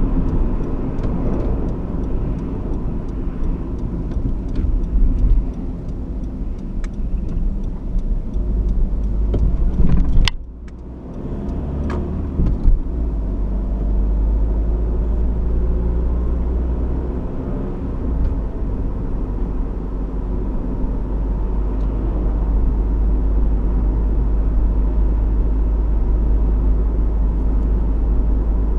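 Honda CR-V 1.6 i-DTEC four-cylinder turbodiesel running under way, with steady engine and road rumble. About a third of the way in there is a sharp click and the noise briefly drops, followed by a couple of lighter clicks before the steady rumble returns.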